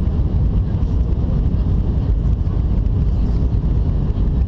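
Steady low rumble of cabin noise inside an Airbus A319 airliner on approach, the mix of engine and airflow noise heard at a window seat.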